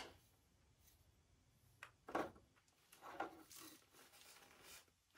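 Mostly near silence with faint handling sounds from TV parts being fitted, including a brief knock about two seconds in.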